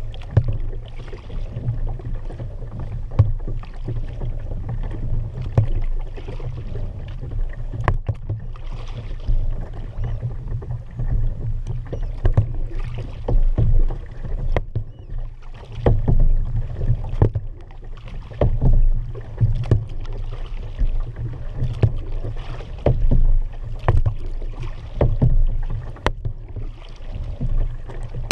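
Kayak paddling: paddle strokes dipping and splashing in a steady rhythm, about one a second, with sharp knocks among them over a constant low rumble on the microphone.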